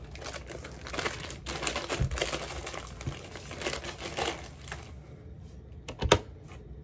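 Crinkling and rustling for about five seconds, then quieter, with one sharp click about six seconds in.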